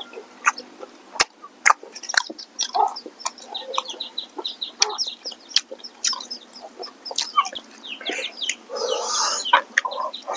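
Chickens clucking, mixed with close, sharp clicks and smacks of someone chewing tough smoked pork.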